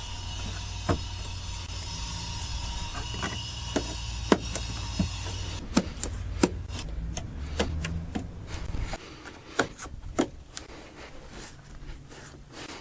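Irregular sharp clicks and knocks of plastic trim parts and clips being handled and pressed into place. A steady low hum underneath stops about nine seconds in.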